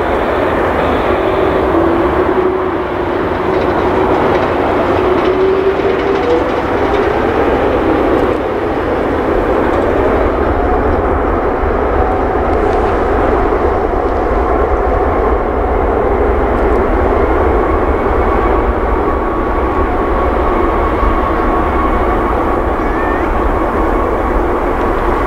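Four CFM56-5C turbofans of an Airbus A340-300 running at idle as the airliner taxis: a steady, loud jet rumble with faint whining tones that drift slightly in pitch.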